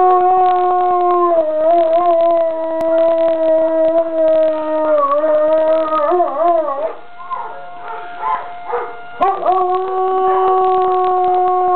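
Young dog howling in response to a siren: long drawn-out howls that waver in pitch, break off for about two seconds partway through, then start again.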